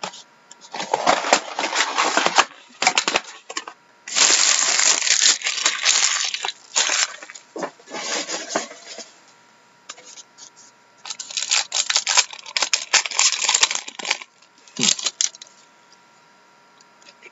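Crinkling and tearing of packaging: foil trading-card pack wrappers and a cardboard box handled and torn open, in several bursts of a few seconds each, the longest about five seconds.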